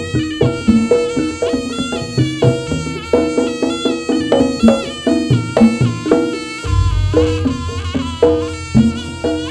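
Live jaranan gamelan music: a wavering, reedy shawm melody over struck metal tones and hand-drum beats, with a deep boom about seven seconds in.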